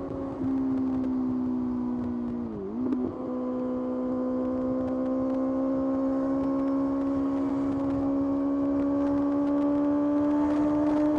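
Kawasaki ZX-6R's inline-four engine running under way at high revs. About two and a half seconds in, the revs dip and jump back briefly, then climb slowly and steadily as the bike accelerates.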